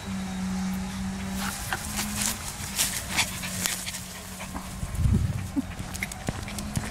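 Small Maltese–Yorkshire terrier mix moving about in grass and onto paving, with a run of quick light clicks and a low thump about five seconds in, over a steady low hum.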